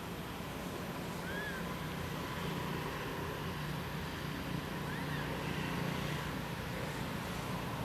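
Outdoor background: a steady low rumble, with a couple of faint short high chirps, one about a second and a half in and another around five seconds.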